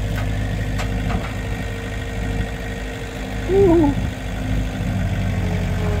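An engine idling steadily. A short wavering pitched sound rises over it about three and a half seconds in.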